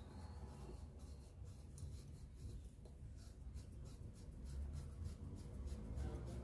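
Quick, repeated scraping strokes, several a second: hand work rubbing or scraping at a part of the starter motor being repaired.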